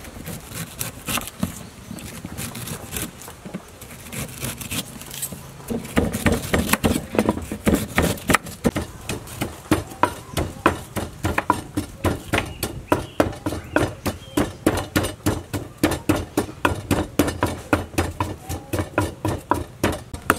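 Wooden pestle pounding chili in a mortar: a steady run of thuds at about three strokes a second that starts about six seconds in, after quieter, irregular knocking.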